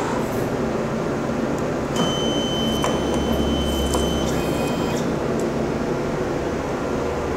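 Steady machine hum from a flatbed UV printer, with a small motor whining for about two seconds a couple of seconds in. A few light clicks come as a metal lighter is set on the print table.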